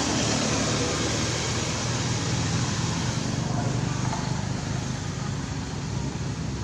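Motor vehicle engine running with a steady low hum over road noise.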